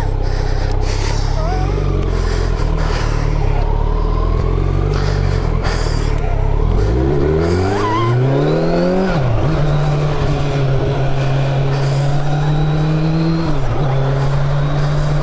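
Motorcycle engine pulling away: running low and steady at first, then revving up through a gear about seven seconds in, dropping sharply at a gear change near nine seconds, and settling to a steady cruise with another brief dip near the end.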